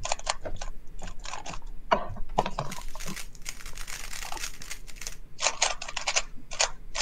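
A 3x3 speed cube being turned quickly, most likely while it is scrambled for the next solve. The plastic layers make rapid clicks in several short flurries.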